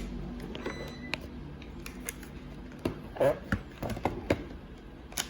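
Scattered clicks and small plastic knocks from handling a multimeter and its test leads at an unpowered contactor, with a short run of rattling clicks about three seconds in.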